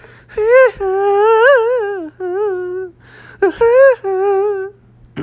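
A man's voice singing several held, wavering high notes in falsetto, like a vocal warm-up, with short breaks between the phrases.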